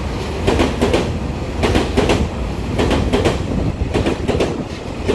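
A Taiwan Railway EMU3000 twelve-car electric multiple unit pulling out past the platform. There is a steady low rumble, and its wheels clack over the rail joints about twice a second.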